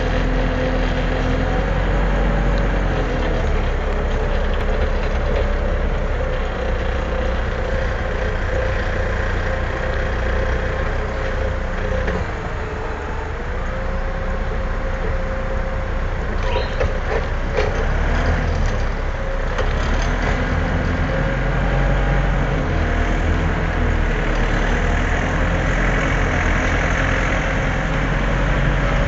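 A small lift truck running as it drives along, a steady low rumble with a motor tone that slowly rises and falls as it speeds up and slows down. A few short knocks sound about halfway through.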